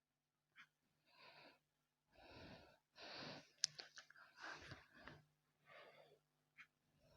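A person's breath sounds close to the microphone: a string of short, quiet, breathy puffs, with a few sharp clicks around the middle.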